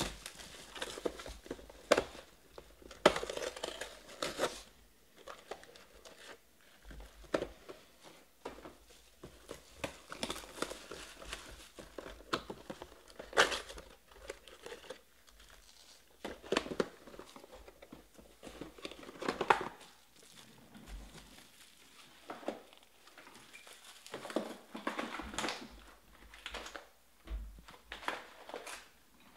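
Foil-wrapped trading card packs and their cardboard hobby boxes being handled: packs crinkle and rustle in irregular spurts as they are pulled out of the opened boxes and stacked, with a few short taps and clicks.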